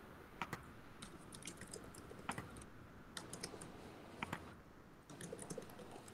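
Faint, irregular clicking and tapping of a computer keyboard and mouse, in scattered clusters of quick clicks.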